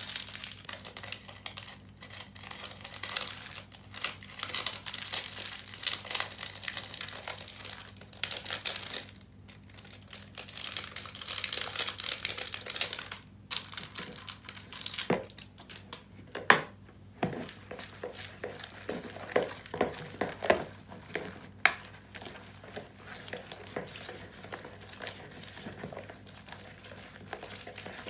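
Hands kneading and stretching sticky homemade glue slime with sequins mixed in, in a plastic bowl: irregular crinkling, crackling and sticky clicks, with a few sharper snaps around the middle.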